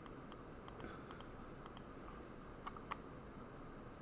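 Irregular light clicks of a computer mouse and keyboard, about ten in four seconds, over faint room hiss.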